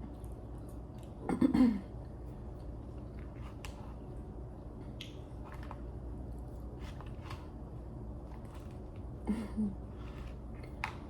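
Close-up eating sounds: chewing and biting food, with scattered small crunches and mouth clicks. Two short low voiced sounds stand out, the louder one about a second and a half in and a softer one near the end.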